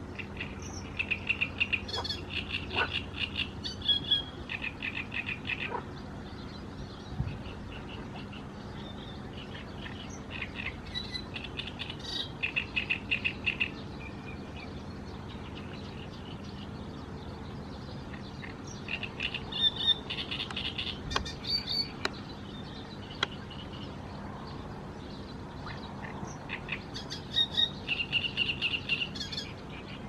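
Great reed warbler singing: four bouts of rapid, harsh repeated notes, each a few seconds long, with pauses between.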